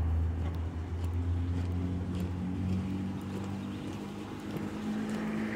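Footsteps on a gravel trail, over a steady low drone from a distant engine with a faint pitch that drifts slowly.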